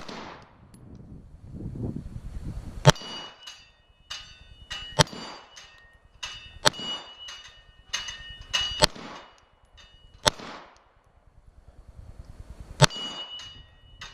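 About six gunshots, one every one and a half to two and a half seconds, each followed by a clanging metallic ring.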